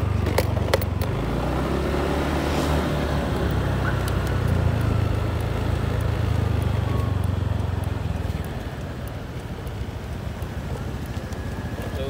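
Motor scooter engine running steadily under way in street traffic, with road noise. It grows quieter after about eight seconds as the bike slows.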